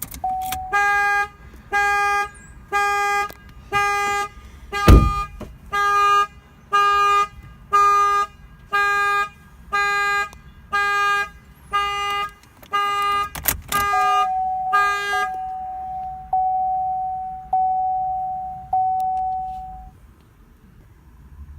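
Chevrolet Sonic's anti-theft alarm going off during key programming: the car horn sounds in regular honks about once every 0.8 s, some fifteen in all, with a sharp knock about five seconds in. About fourteen seconds in the honking gives way to a single held tone that stops about six seconds later.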